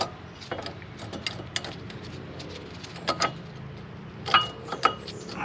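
Thin metal brake hardware clips clicking and clinking as they are pressed into place on the brake assembly. The irregular sharp clicks are loudest about three seconds in and again just past four seconds, with a brief metallic ring.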